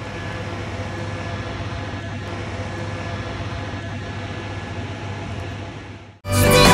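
Steady room noise of a home recording: an even hiss with a faint low hum and no music. It cuts off suddenly about six seconds in, and loud pop music starts straight after.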